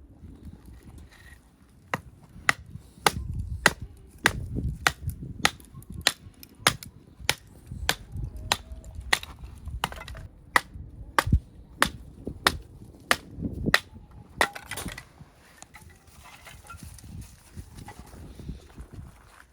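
A run of sharp knocks, about two a second, starting about two seconds in and stopping about fourteen seconds in.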